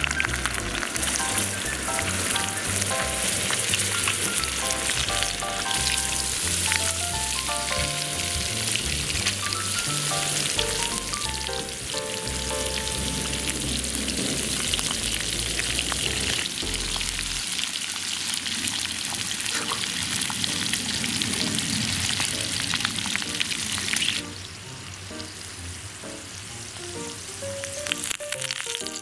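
Oil frying and sizzling in the cups of a cast-iron multi mini pan as shrimp, mushrooms and garlic cook in ajillo oil. The sizzle drops to a noticeably quieter level near the end, at a lowered heat.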